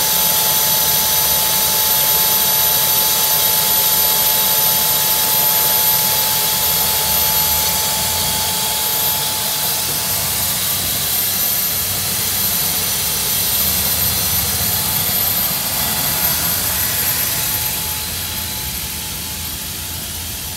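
Small military generator turbine engine in a Ford tractor running with a steady high whine over a jet-like hiss. It grows fainter as the tractor drives away, dropping further near the end.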